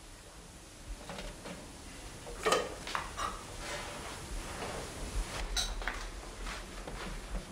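Cups and dishes clinking and knocking now and then as a coffee tray is loaded and carried.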